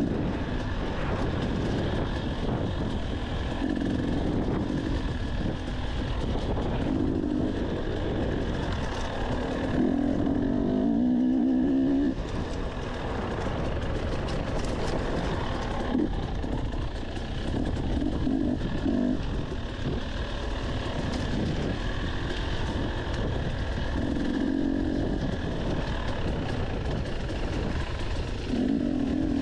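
Dirt bike engine heard from the rider's own bike while trail riding, the revs rising in short throttle bursts every few seconds and falling back between them, over a steady low rumble.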